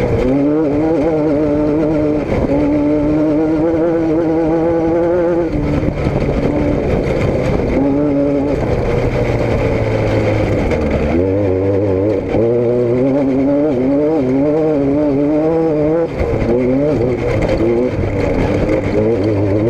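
Motor vehicle engines running loudly, their pitch repeatedly rising and falling as they are revved.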